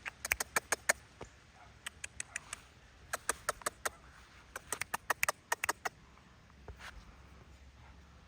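Footsteps on dry yard ground: a light patter of short, sharp crunching clicks in irregular bursts of several a second, with pauses between the bursts.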